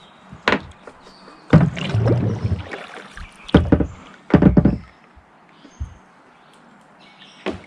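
A handful of knocks and thumps against a kayak, the heaviest about two and four and a half seconds in.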